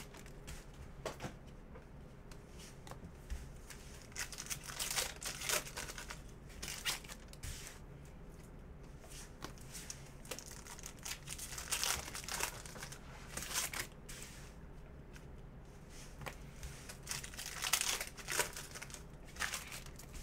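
Panini Prizm basketball retail card packs being torn open and their wrappers crinkled, in short rustling bursts every second or two, some louder than others.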